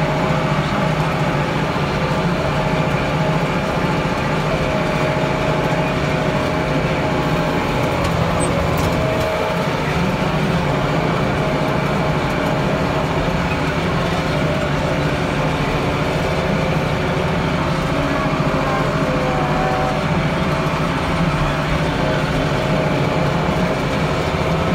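Tractor engine running steadily under load, heard from inside the cab as it works a field. The drone holds one even pitch.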